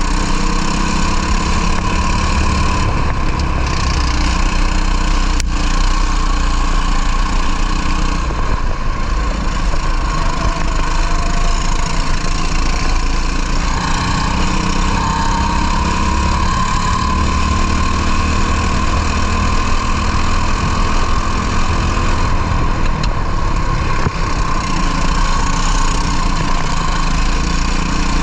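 Racing kart engine running at race pace, heard onboard, its note rising and falling with the throttle, with a long climb in pitch about halfway through.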